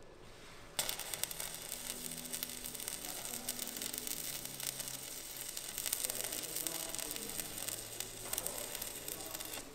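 Stick (arc) welder crackling and sizzling steadily as the steel strap of a new hull anode is welded onto a narrowboat's steel hull; the arc strikes a little under a second in.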